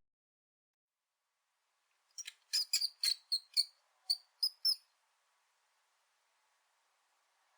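About a dozen short, high-pitched chirps or squeaks from a small animal, starting about two seconds in and ending near the five-second mark.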